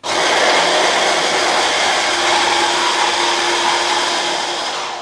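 Stick blender fitted with its chopper-bowl attachment running continuously at full power, one long hard blitz rather than pulses, chopping roasted red capsicum, walnuts and garlic into a fine paste. It starts abruptly, runs steadily, and dies away at the end.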